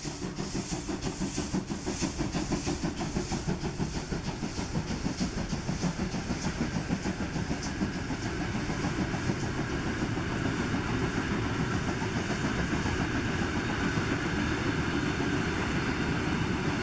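Large steam locomotive hauling a passenger train past: a quick rhythm of exhaust chuffs with steam hissing from the cylinder drains, fading over the first several seconds, then the steady rumble and clatter of the coaches' wheels on the rails.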